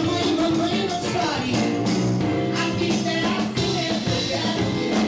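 Live band performance: lead vocalists singing a song over drums and band accompaniment, the word "mamãe" sung about a second in.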